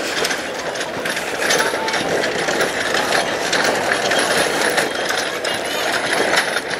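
Footsteps of a marching column of cadets on a tarmac road, a dense patter of many small ticks, mixed with the steady chatter of spectators along the route.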